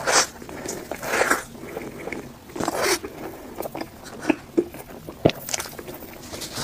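Biting into and chewing a soft black sesame sponge cake roll, with wet mouth noises and a few sharp clicks of the lips and tongue.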